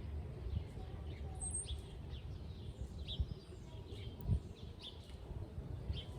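Small birds chirping repeatedly in short, quick notes over a low rumbling background, with one sharp thump a little after four seconds in.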